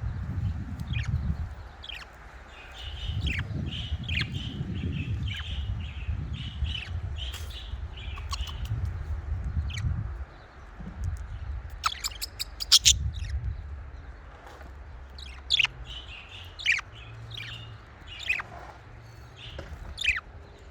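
Budgerigars chattering: many short falling chirps, stretches of warbling song, and a brief cluster of sharp loud calls about halfway through. A low rumble comes and goes underneath.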